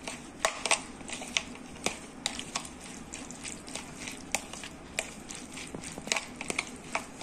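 Metal spoon stirring a wet, mayonnaise-dressed chopped-vegetable mix in a plastic bowl, with irregular clicks and taps as the spoon strikes the bowl, several a second.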